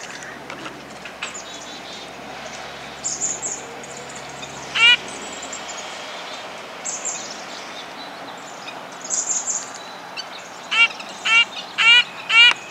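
Red-breasted nuthatch giving short, nasal calls: one about five seconds in, then four in quick succession near the end, about half a second apart. Fainter, very high thin notes from other small birds sound in between, over a steady outdoor hiss.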